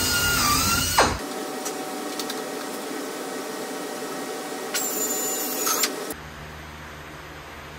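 High-speed pneumatic drill whining as the bit bores through the thick aluminum spar cap, the pitch dipping as it bites, then stopping about a second in. A steady noise follows, broken by a second short burst of drilling about five seconds in.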